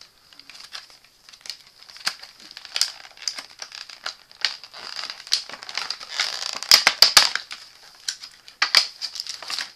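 Clear plastic packaging of a trading card box crinkling and crackling as hands pull and press at it. The crackles come thickest and loudest about six to seven seconds in, with another sharp flurry near the end.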